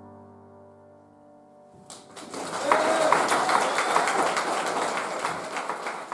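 The last chord of a Roland RD-700GX stage piano fading away. About two seconds in, audience applause breaks out and carries on.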